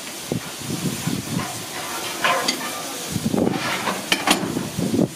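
Hissing from the hose connections between a steam locomotive and a coach as a shunter works the coupling, with two sharp metallic clinks a little after four seconds in.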